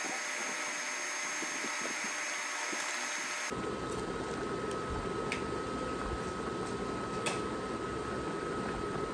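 Chicken afritada broth simmering in a pan: a steady bubbling hiss with a faint high whine. The sound changes abruptly about three and a half seconds in, taking on more low rumble, and a few small pops follow.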